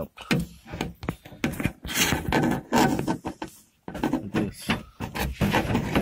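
Irregular clicks, knocks and scraping of plastic and metal lock parts being handled inside a car door cavity as the outer-handle Bowden cable is hooked into the door lock, with a brief pause about four seconds in.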